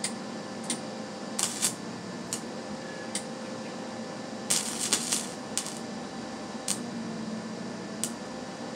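Steady hum from a wire-feed welder with scattered short, sharp crackles and clicks, bunched into a brief burst about halfway through, as the welding gun is worked at the steel frame before a full weld.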